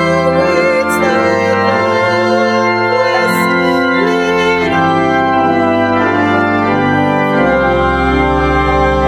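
Organ playing slow sustained chords that change every second or so, with a deep bass note coming in about seven seconds in.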